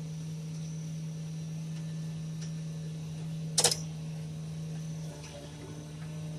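Tractor engine and disc mower running steadily while cutting hay, a single steady drone heard from inside the tractor cab. One sharp click or knock about three and a half seconds in is the loudest sound.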